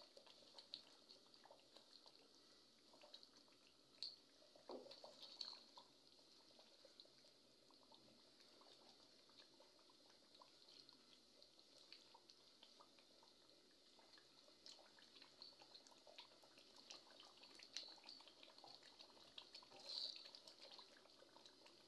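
Faint crackling and bubbling of a chicken karahi simmering in its separated oil, with occasional soft scrapes and taps of a spatula against the metal pot as it is stirred.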